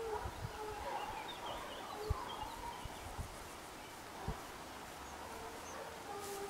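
Hunting hounds giving tongue faintly in the distance on a wild boar, a long held cry near the end, with a few small bird chirps.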